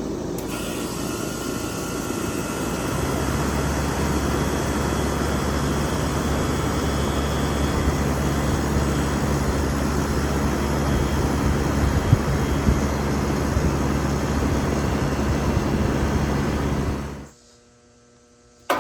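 Air-conditioner condensing unit starting up: a rushing fan sound, joined about three seconds in by the compressor's steady low hum, then running evenly with a couple of light ticks. The sound cuts off abruptly near the end.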